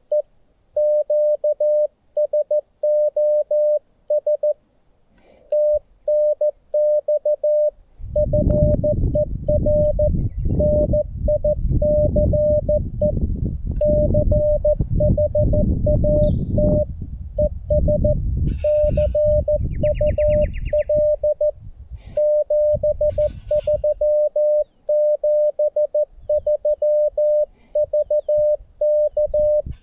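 Morse code (CW) from a Xiegu G90 ham radio transceiver: a single steady tone keyed on and off in dots and dashes at slow QRS speed. A loud low rumble joins the tones about a third of the way in and dies away about two-thirds of the way through.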